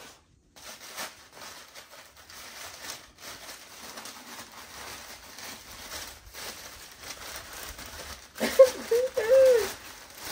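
White packing paper rustling and crinkling as it is handled and pulled from a cardboard box. Near the end comes a short wordless vocal sound from a woman.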